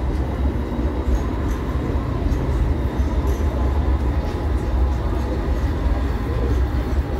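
Sydney light rail tram running along the street track, a steady low rumble under the general city street noise.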